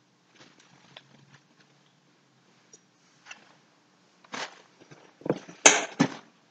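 A person settling into a chair at a table: a few faint knocks and rustles, then a cluster of louder thumps and scrapes about four seconds in, loudest near the end.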